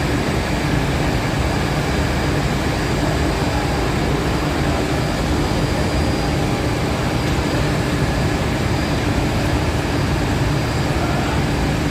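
A machine running steadily: a constant low drone with a faint steady whine above it, unchanging throughout.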